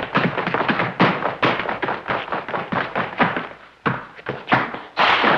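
A tap dancer's shoes striking a wooden floor in a fast, unaccompanied run of taps that thins out to a few single hard taps. Near the end the band comes in loudly.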